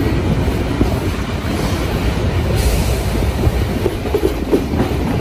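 A train running on the rails, a loud steady rumble of wheels on track.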